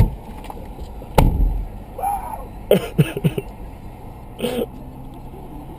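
A car door thumps shut about a second in, followed by a few short shouts and yelps.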